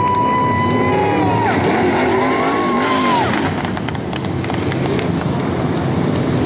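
Dirt-track race car engines at full throttle, their pitch held steady and then dropping about a second and a half in as they lift off. A second car's engine then rises and falls in pitch as it goes by. Crowd noise and scattered clapping come from the stands in the second half.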